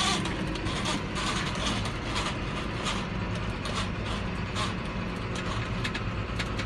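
John Deere 7530 tractor's six-cylinder diesel engine running steadily under way, heard from inside the cab, with a few light clicks.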